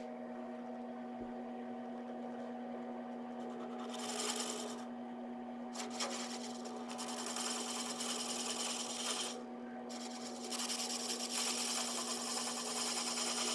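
Wood lathe running with a steady hum while a hand-held steel tool scrapes the spinning chair rung's tenon, trimming it to a lighter fit. The scraping comes in three stretches of hiss, the longest near the end.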